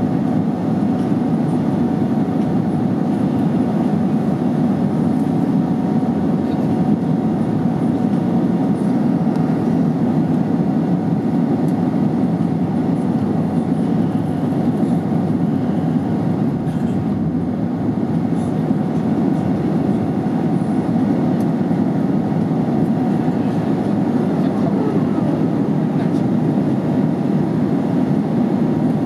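Airliner cabin noise from a window seat: the steady, even rush of the jet engines and air, with a faint steady tone above it.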